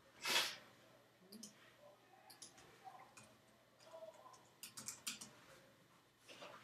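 Scattered computer keyboard and mouse clicks as a ticker symbol is typed in and charts are switched, with a quick cluster of keystrokes near the end. A brief rush of noise comes right at the start.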